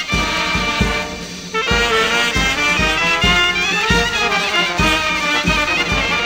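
Greek Macedonian brass band (chalkina) music: brass instruments play a folk melody over a steady low drum beat.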